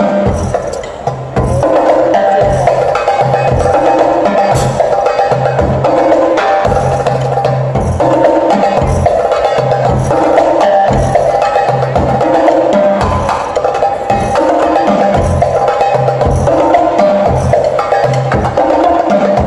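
A live drum ensemble plays drums and cymbals together in a fast, loud groove over a repeating low beat. It comes in full about a second and a half in, after a brief lull.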